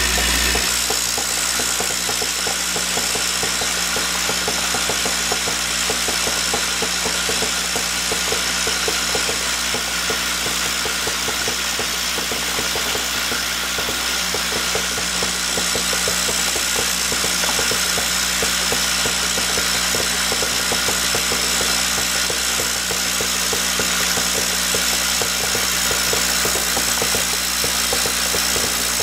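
Centerless grinder parts feeder running steadily: a constant machine hum under a continuous rattle and clatter of small steel cylindrical parts jostling in the hopper and moving along the feed rail.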